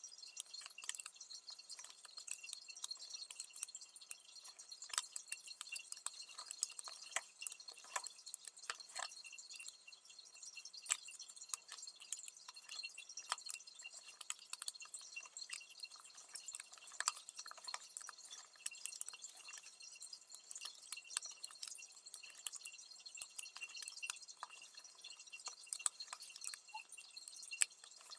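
Faint, irregular small metal clicks and taps from an Allen key turning the screws of a clamping collar on an office-chair gas cylinder.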